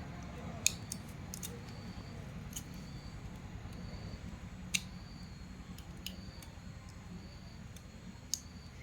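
Irregular sharp clicks and snips of hand work on the pump's motor, a few seconds apart with the loudest about a second in, halfway and near the end, over a steady low hum.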